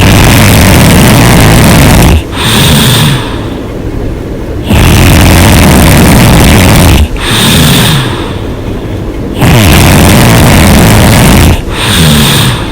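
A woman snoring loudly with her mouth open: three loud snores, each about two seconds long, coming roughly every four and a half seconds, with quieter rattling breaths between them.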